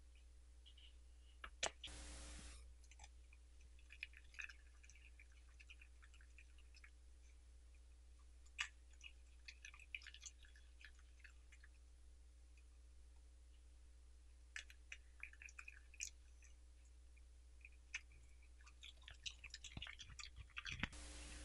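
Faint, close-up sounds of a Welsh Corgi eating cabbage leaves: wet chewing, crunching and lip-smacking clicks in scattered bursts. A low steady hum runs underneath, and there are two short breathy puffs, one about two seconds in and one near the end.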